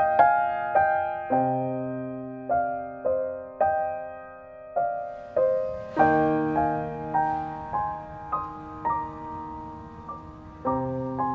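Background piano music: slow, gentle notes and chords struck one after another, each ringing on and fading.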